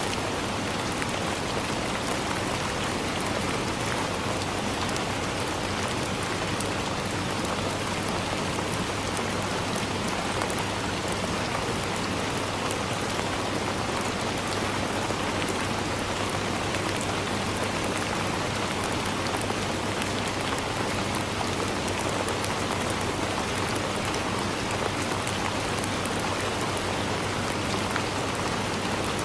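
Steady rain falling on forest leaves, a dense patter of many small drop ticks that does not let up.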